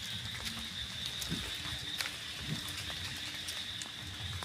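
Steady, high-pitched chorus of insects such as crickets at dusk, with a low rumble and scattered light clicks from walking and handling.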